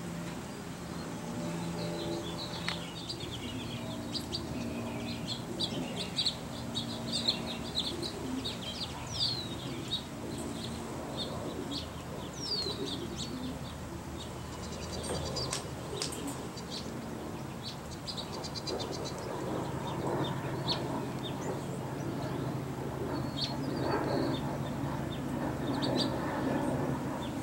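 Small songbirds chirping with many short calls, a few falling chirps and a rapid run of pulsed notes about midway, over a steady low hum.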